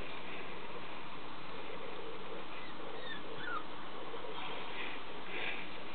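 Young papillon puppy giving a couple of faint, short whimpers about three seconds in, over a steady background hiss.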